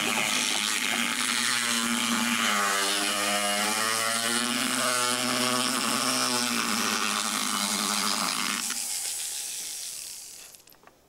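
Motorized equine dental float (power float) grinding a horse's front teeth, its motor running steadily under load. About nine seconds in it is switched off and spins down to quiet.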